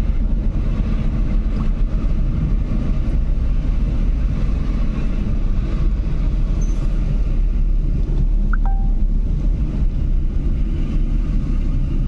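Steady low rumble of car engine and road noise heard inside the cabin as the car climbs a winding hill road. A short, thin high tone sounds once about two-thirds of the way through.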